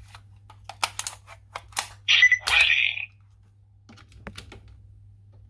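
Sharp plastic clicks from a toy Kamen Rider transformation belt and Faiz accessory being handled and their buttons pressed. About two seconds in comes a short electronic sound-effect burst from the toy's speaker, followed by a few softer clicks.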